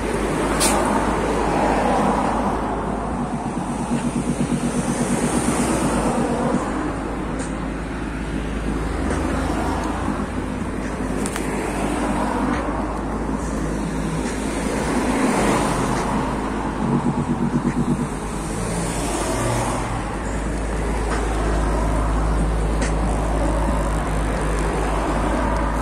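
JBL Charge 3 portable Bluetooth speaker playing a bass test with its low-frequency mode (LFM) on: deep bass notes are held and change in steps, over a loud noisy wash that swells and falls.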